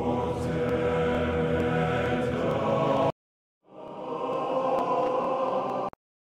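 Spectrasonics Omnisphere 3 choir patches auditioned one after another. The 'Choral FX Morte Et Dabo 1' choir swells in, holds a chord and cuts off suddenly about three seconds in. After a short gap the 'Choral FX Rounds Ending' choir fades in and holds until it cuts off near the end.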